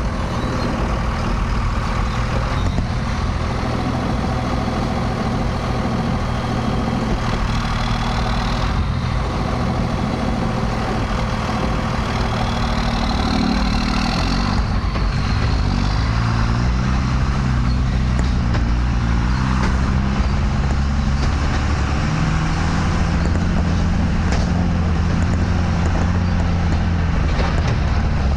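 Dodge pickup's 24-valve Cummins inline-six turbodiesel running steadily, then changing engine speed in steps about halfway through as the truck pulls away with the dump trailer, and holding a steady note as it drives on.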